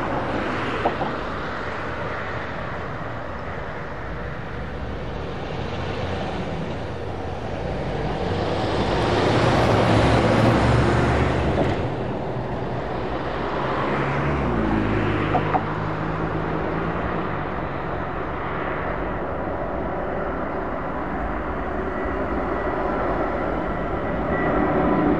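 Jet airliner engines at takeoff power: a dense, steady jet noise that swells to its loudest about ten seconds in, drops abruptly near twelve seconds, then carries on with a low tone sliding down in pitch.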